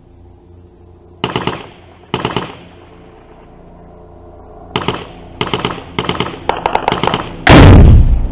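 Short bursts of automatic gunfire close by: two bursts, then a quicker run of several from about halfway through. Near the end comes one much louder, drawn-out blast of a shoulder-fired anti-tank rocket being launched at close range.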